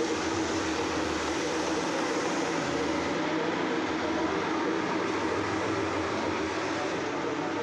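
A woodworking machine running steadily, a continuous even noise with a constant low hum and no breaks.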